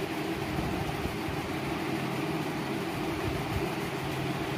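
Steady hum and hiss of a room cooling appliance's fan running, unchanging throughout.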